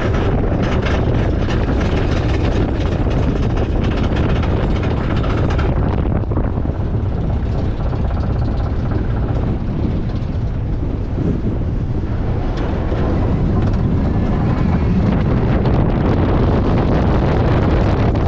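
Steel roller coaster train climbing the lift hill, the chain lift and ratchet clattering with rapid clicks. About six seconds in the clicking fades, leaving a steady low rumble with wind on the microphone, and the clicking comes back near the end.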